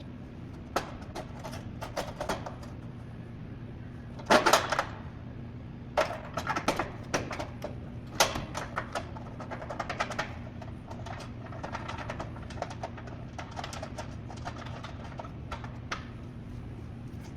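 Clicks, taps and knocks of hand tools and metal parts being handled during work on the mounting bolts, loudest about four seconds in, with a run of quick small clicks later on. A steady low hum runs underneath.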